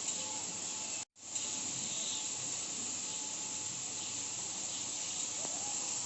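Food sizzling steadily in hot oil in a cooking pan, with a brief dropout about a second in.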